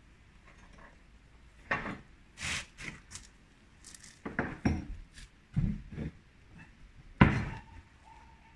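Irregular knocks and clatters of wood and steel as timber packing is shifted and tapped under a steel stair frame to level it. The loudest, a hard metallic knock about seven seconds in, leaves a ringing tone for a second or two.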